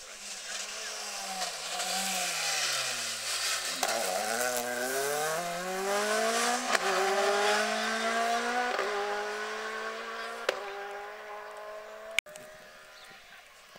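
Mk2 Ford Escort rally car passing flat out: the engine note falls as it comes into the bend, then climbs hard under acceleration through two quick upshifts and fades as the car goes away. A sharp click near the end.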